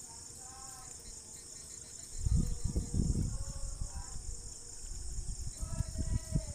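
Crickets chirring steadily, with irregular low thuds and rumbles from about two seconds in as the steering box is handled and its input shaft turned by hand to check the preload adjustment.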